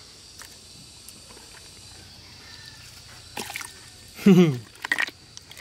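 Wet mud sloshing and dripping as hands push a toy tank through a tray of liquid mud and smear mud over it, in small irregular splashes mostly in the second half. About four seconds in, a short voice exclamation falling in pitch is the loudest sound.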